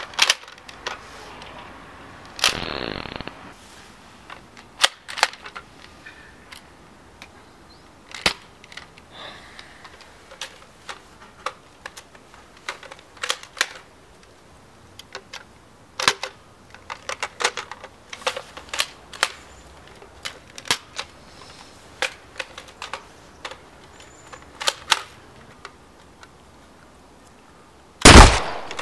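Plastic clicks and clacks of a Nerf Maverick blaster being handled, primed and triggered, spread out one by one with pauses between, and a short rattle about two and a half seconds in. Just before the end comes a single very loud gunshot-like bang.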